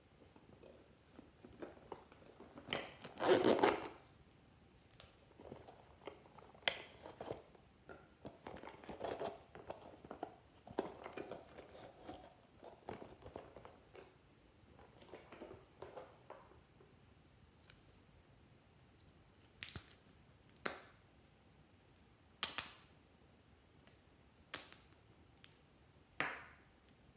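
Hands handling and opening small hard plastic toy containers and a plastic contact-lens case: scattered plastic clicks and taps, with a louder scraping rattle lasting about a second a few seconds in and several sharp single clicks in the second half.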